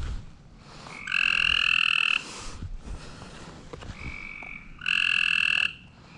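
Frogs trilling: two loud trilled calls, each about a second long, about a second in and about five seconds in, with a fainter frog trilling just before the second.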